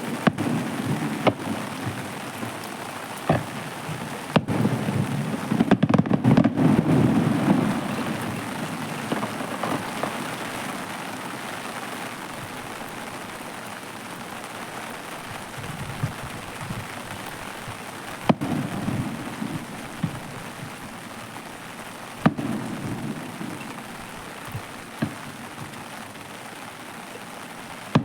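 Aerial fireworks bursting: sharp bangs each followed by a low rolling rumble, with a loud cluster of several bangs about six seconds in and sparser single booms later, over a steady crackling hiss.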